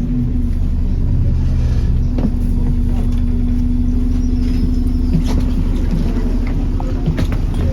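Alexander Dennis Enviro400 Trident double-decker bus's diesel engine running steadily, a low rumble with a steady hum and a few scattered knocks or rattles.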